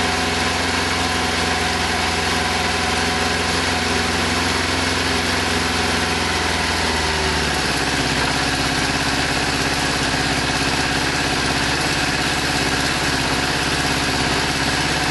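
Kawasaki GPZ600R's inline-four engine idling steadily after a cold start on choke, running on only three cylinders with one cylinder not firing. About halfway through, the engine note shifts lower down.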